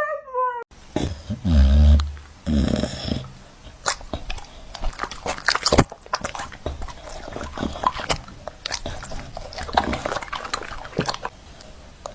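A cat's drawn-out yowl cut off in the first moment. It is followed by low rumbling thumps and many scattered short knocks and clicks, typical of pets moving about and scuffling.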